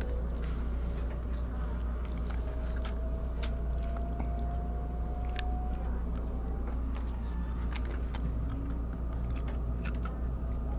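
Handling noise on a handheld phone's microphone: scattered clicks and rubbing over a steady low rumble, with a faint, slowly rising whine a few seconds in.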